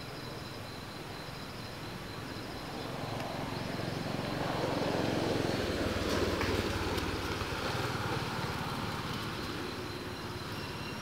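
A motor vehicle passing: its engine noise swells, peaks about halfway through with a falling pitch, and fades away, over a steady high chirring of insects.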